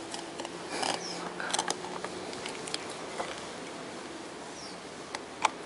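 Small scratches and clicks of fingers handling a microphone's XLR connector and its wires while soldering the pins, with one sharp click near the end.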